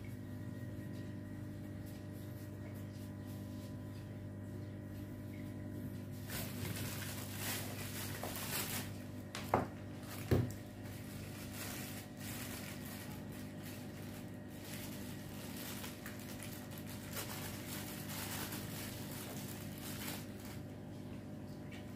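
Plastic packaging rustling and small plastic aquarium pump parts being handled, starting about six seconds in, with two sharp clicks around ten seconds in as fittings are pressed onto the pump, over a steady low hum.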